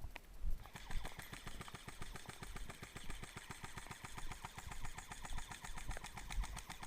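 An engine starts about a second in and keeps running with a steady, rapid pulse.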